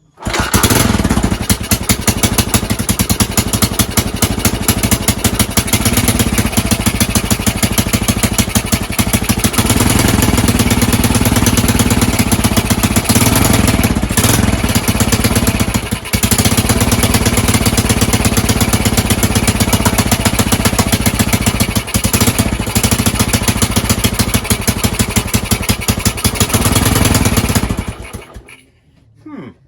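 Honda TLR200 four-stroke single-cylinder trials bike engine catching just after the start and running, a tad noisy, then stopping near the end.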